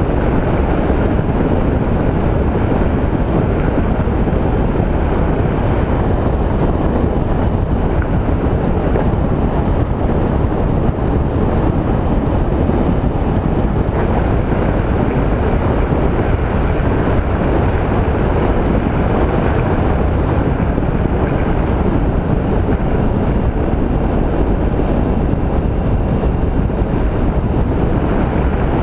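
Steady wind rush on a helmet-mounted microphone while riding a Honda ST1300 touring motorcycle, with the bike's engine and tyre noise underneath. The mic's lost windsock has been replaced with an improvised one.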